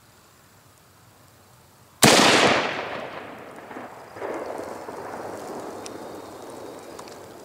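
A single hunting-rifle shot about two seconds in, fired at a whitetail doe. Its loud crack dies away over several seconds, with a second, softer swell of rumble about two seconds after the shot that fades slowly.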